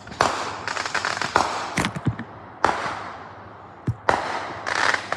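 Fireworks going off: a series of sharp bangs and crackling pops at uneven intervals, each trailing away in a rolling echo.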